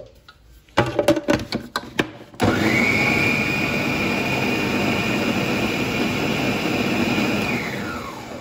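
A few knocks and clicks as the lid goes onto a food processor bowl, then the food processor's motor starts with a quickly rising whine and runs steadily for about five seconds, grinding a cooked chicken and chana dal mixture, before winding down near the end.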